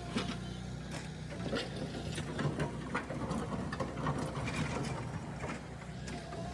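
JCB backhoe loader's diesel engine running steadily, with repeated knocks and clatter from the machine's work.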